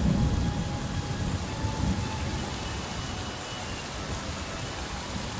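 Heavy rain pouring steadily, with the low rumble of thunder dying away over the first couple of seconds.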